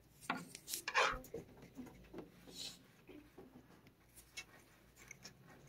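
A toothbrush on a stick scraping against a cat's fur and mouth while the cat bites and chews on the bristles: a few short scratchy rustles in the first three seconds, the loudest about a second in, then only faint clicks.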